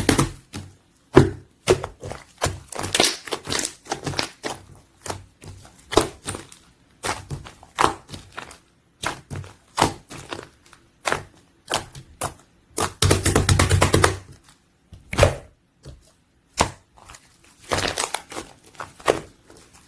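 Slime being squeezed, poked and stretched by hand, giving irregular sticky clicks and pops of trapped air, with a fast run of crackling pops about 13 seconds in.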